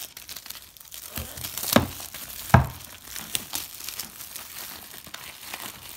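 Clear plastic shrink-wrap on a trading-card box crinkling and tearing as it is pulled off by hand, with two loud sharp snaps about a second apart in the first half.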